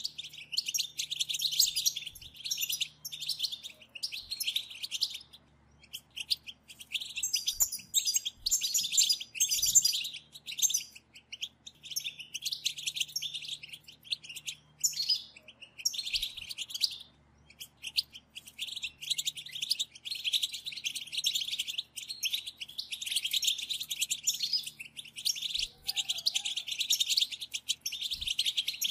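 A group of European goldfinches chattering in a dense run of rapid, high twittering calls, the kind known as 'batbata', broken by a few short pauses.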